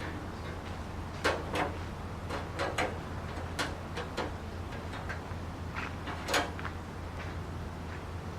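Irregular light knocks, clicks and scrapes of sheet metal and hand tools being handled, about ten in all, the loudest a little past the middle, over a steady low electrical hum.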